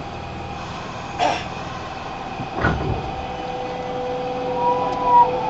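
Inside a Nagoya Municipal Subway 5050-series train: a steady electrical hum and whine, with two knocks about one and two and a half seconds in. Near the end a motor tone begins to rise.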